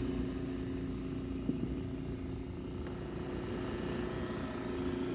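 Shop vac motor running steadily as the ventilator's air supply, its speed set by a dimmer switch: a constant hum with a light click about a second and a half in.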